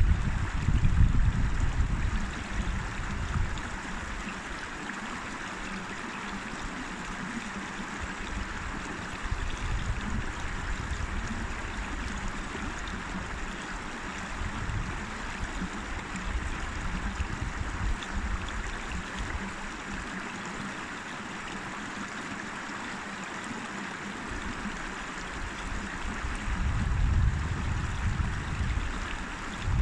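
River water flowing, a steady rushing babble. A low rumble of wind buffeting the microphone is mixed in during the first three seconds or so, fades out, and comes back over the last few seconds.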